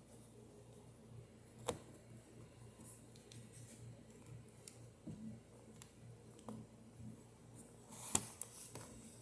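Faint scattered clicks and scrapes in a quiet small room, a sharp click about two seconds in and a louder cluster near the end, from a kitten moving about in and on its cage as it gets out.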